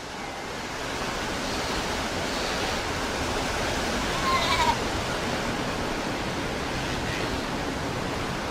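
Playback of an African field recording from the BBC sound-effects library: a steady wash of background noise with a single short bleating animal call about four and a half seconds in.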